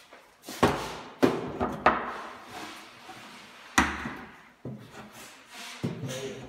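A series of sharp knocks and thuds, five or six of them at uneven intervals, with some rubbing noise in between.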